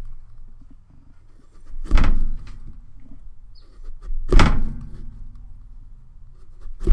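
Heavy dull thumps carried through a tabletop, three of them about two and a half seconds apart, as a knife is jabbed and worked into a pumpkin being carved on the table.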